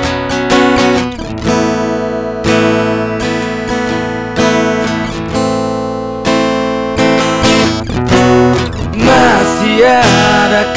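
Acoustic guitar strumming chords in an instrumental break of a slow pop ballad; a man's singing voice comes in over the guitar near the end.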